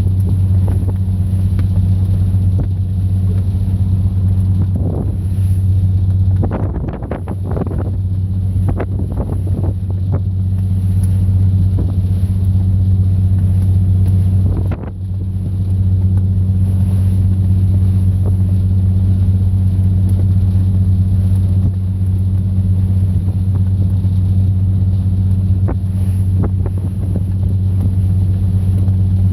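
Fishing boat's engine running steadily with a deep, loud hum heard from on board; the hum dips briefly about halfway through.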